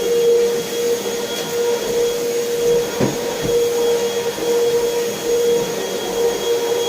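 Vacuum cleaner running steadily, a constant rushing of air with a steady motor whine.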